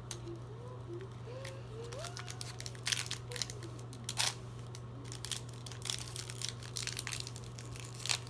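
A small plastic toy wrapper crinkling and tearing as it is opened by hand, in a run of short irregular crackles.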